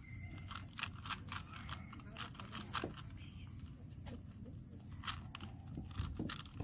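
Quick, irregular plastic clicks of a Rubik's Cube being turned, several a second, over a low rumble and a steady high-pitched tone.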